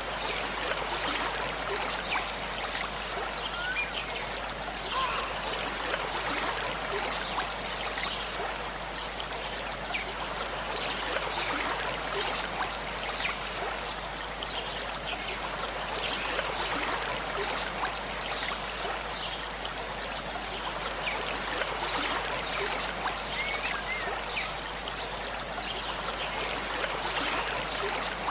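A small stream babbling and trickling steadily, with many small splashes and bubbling gurgles.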